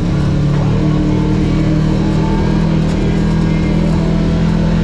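Off-road vehicle's engine running loud and close at a steady speed.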